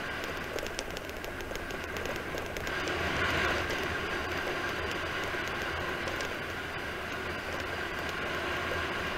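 Steady wind rushing over the microphone of a camera on a bicycle descending fast, with tyre rumble on the asphalt underneath. It grows slightly louder about three seconds in.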